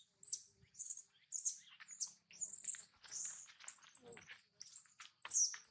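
Baby macaque giving a rapid string of high-pitched squeals and screeches, one after another with short gaps, starting a moment in.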